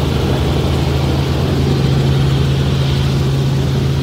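Helicopter in flight heard from inside the cabin: a loud, steady drone of rotor and turbine noise with a constant low hum.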